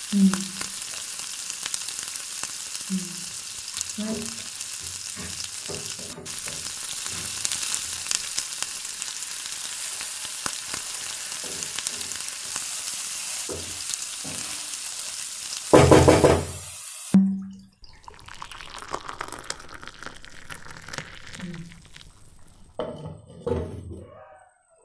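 Paneer cubes and spices frying in oil in a pan: a steady sizzle, with a spoon scraping and tapping against the pan. About sixteen seconds in there is a loud clatter, and after it the sizzle drops to quieter bubbling and stirring as the gravy simmers.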